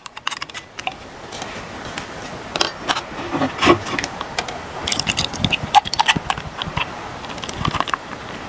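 Aluminium beer can being cracked open and handled, with small clicks and knocks of the can and a glass mug against each other and the table. Beer starts pouring into the mug near the end.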